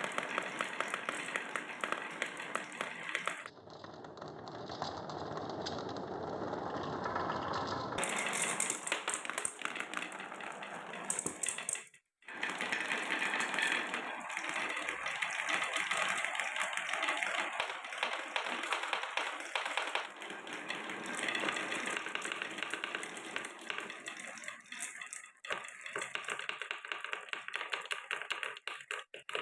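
Marbles rolling along wooden tracks and blocks, with dense rapid clicks and clatter as they knock against the wood and each other. The sound changes character abruptly several times, with a brief dropout about twelve seconds in.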